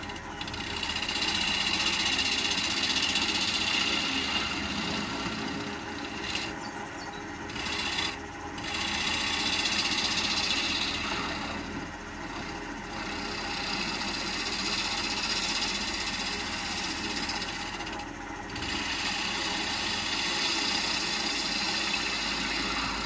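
A gouge cutting into a dense hardwood bowl blank spinning on a wood lathe, shaping the outside of the bowl. It makes a steady hissing shear in long passes that swell and ease off, with a few brief pauses as the tool is repositioned.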